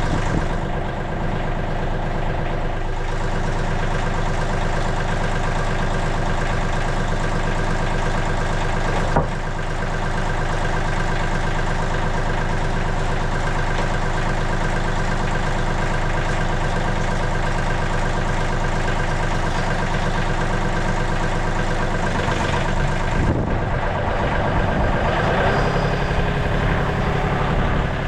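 MechMaxx SM32 portable sawmill's engine running steadily; its note shifts slightly near the end.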